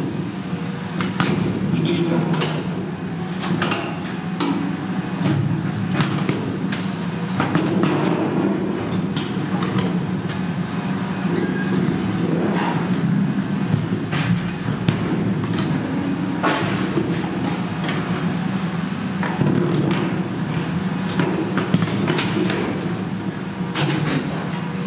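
Volvo EC480E high-reach demolition excavator at work: its engine drones steadily under irregular metallic bangs and crashes as the demolition attachment tears into a steel silo.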